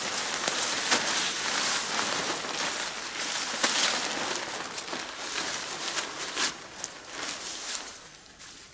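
Waterproof tarp sheet rustling and crinkling as it is handled and pulled over a taut ridgeline, with sharp crackles from the stiff fabric. The rustling dies down near the end.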